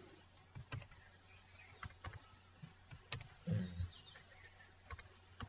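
Faint computer keyboard keystrokes: a handful of separate clicks at uneven intervals over a low steady hum, with a brief low murmur about three and a half seconds in.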